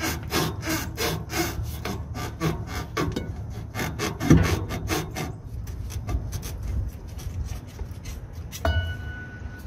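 Semi truck's old front shock absorber being worked back and forth off its lower shoulder stud: a rapid, rhythmic rubbing and scraping of the shock's eye and bushing on the stud. It slows and thins out after about five seconds, with a brief squeak near the end.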